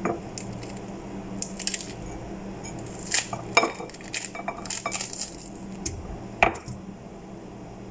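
Pomegranate being pulled apart by hand: the rind cracks and tears in scattered sharp crackles and squishy snaps, loudest a little past the middle and once more near the end.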